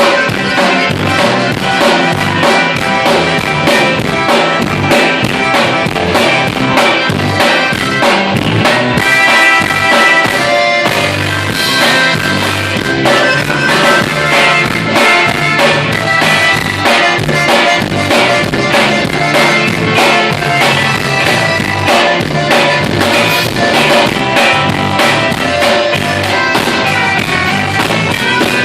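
Instrumental band music with a drum kit keeping a steady beat under guitar and other pitched instruments; no singing.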